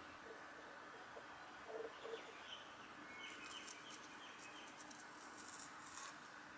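Faint birds: a few short, low coo-like notes, then a couple of brief chirps. From about three seconds in, dry dead flower stalks rustle and crackle as they are grabbed by hand, loudest near the end.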